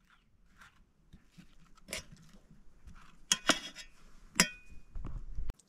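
A metal fork clinking against a metal bowl as it prods cooked banana pieces: a few sharp clinks, the last leaving a brief ring. A short low rumble follows near the end.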